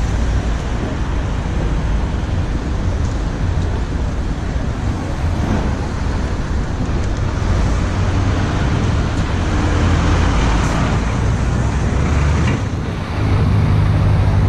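Steady city road traffic: passing vehicles with a continuous low rumble, growing a little louder near the end.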